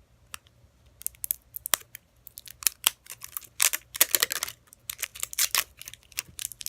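Plastic toy packaging crinkling and tearing as an LOL Surprise pet's packet is opened, in a run of short crackles and clicks that grows busier after the first few seconds.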